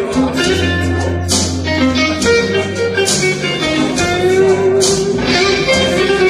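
Blues recording played back through a pair of hi-fi floorstanding loudspeakers driven by a single-ended valve amplifier: an instrumental passage of guitar over a steady bass line, with bright hits about every one and a half to two seconds.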